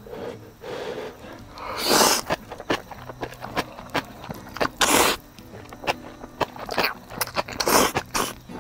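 A person eating instant noodles: three loud slurps about three seconds apart, with short chewing clicks between them.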